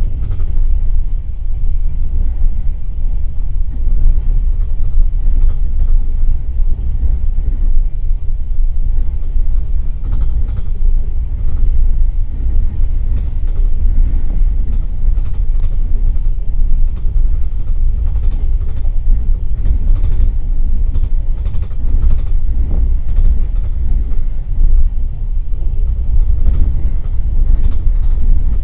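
Rumble of a moving passenger railway coach, its wheels running on the rails: a heavy, steady low rumble with occasional short clicks and knocks.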